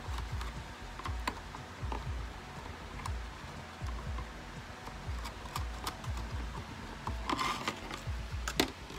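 Small plastic clicks, taps and handling of a thin polycarbonate RC car body shell as LED taillight housings are pressed into it. A longer rustle of the flexing shell about seven seconds in, and a sharper click just before the end.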